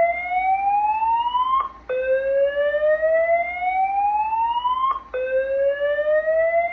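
Voice-evacuation fire alarm sounding its slow-whoop evacuation tone: a loud tone that rises steadily over about three seconds, cuts off, and restarts after a brief break, repeating.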